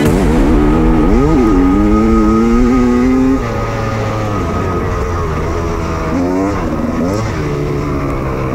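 Enduro dirt bike engine running under load, the revs climbing about a second in, holding, then dropping off a few seconds in and rising again twice near the end as the rider works the throttle.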